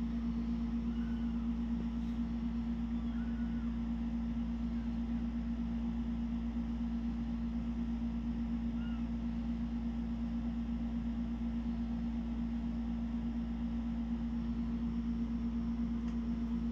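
A steady low mechanical or electrical hum with one strong tone. Over it come a few faint, short, high mews from newborn kittens, about a second in, around three seconds and around nine seconds.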